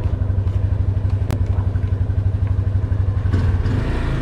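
Motorcycle engine idling with a steady, fast low pulsing, and one sharp click about a second in.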